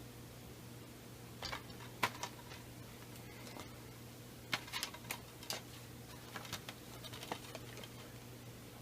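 Scattered light clicks and taps of plastic DVD cases and packaging being handled, over a steady low electrical hum.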